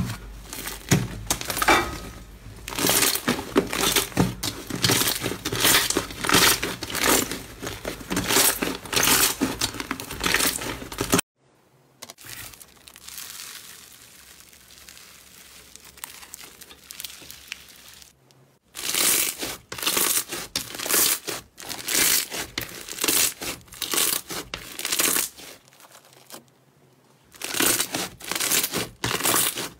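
Hands squishing and kneading slime, a dense run of sticky crackles and pops. About eleven seconds in it drops to a faint, soft stretching sound as a pink slime with foam beads is pulled apart, and at about nineteen seconds the crackling squishes of fluffy pink slime being pressed start again.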